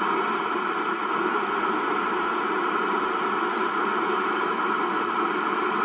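10-metre CB radio's speaker giving out a loud, steady static hiss, starting suddenly as the squelch opens on an incoming signal, with no voice heard through it.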